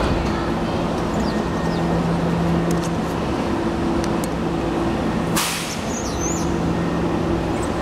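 WMATA Metro train standing at the platform with its doors shut, giving off a steady electrical hum. About five and a half seconds in comes a short, sharp hiss of air, typical of the train's air brakes releasing before it pulls away.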